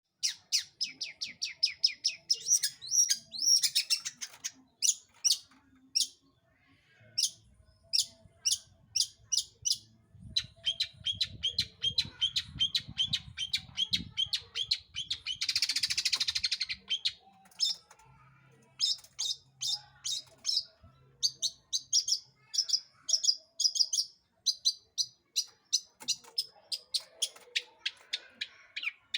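Long-tailed shrike singing in full voice: fast runs of sharp, repeated chirps, about four or five a second, broken by brief pauses. There is a harsh, rasping burst about halfway through.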